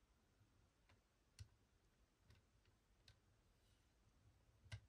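Near silence with a few faint, scattered clicks from a wooden turntable being turned by hand. The clearest click comes just before the end.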